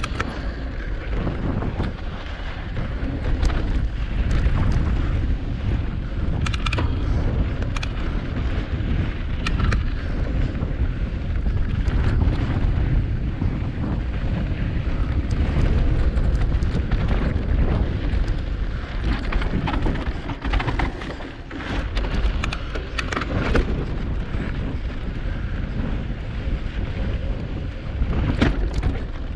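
Wind buffeting the microphone of a bike-mounted camera on a cross-country mountain bike riding rocky singletrack: a steady low rumble with frequent sharp clicks and rattles from the bike and its tyres on stones.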